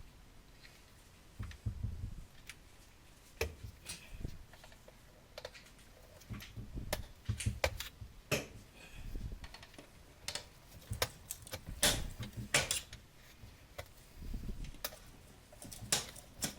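Irregular clicks, clinks and light knocks of hand tools working on an old garbage disposal's metal mounting hardware, with handling thumps in between.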